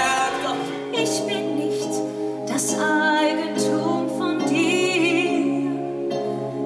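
A woman singing with instrumental accompaniment, her held notes carrying vibrato, amplified through a theatre sound system.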